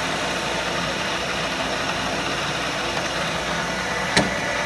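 Milling machine running steadily while spot-drilling a ring of holes in an aluminium part, with one sharp click about four seconds in.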